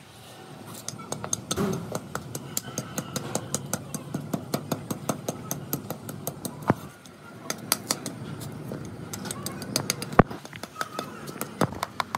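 Rapid, irregular sharp clicks or taps, several a second, over a steady workshop background, with a short lull about seven seconds in and one louder crack about ten seconds in.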